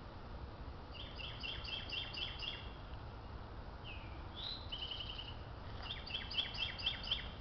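A songbird singing a run of repeated chirped notes, about four a second, twice, with a few other bird calls and a short trill in between, over a low outdoor rumble.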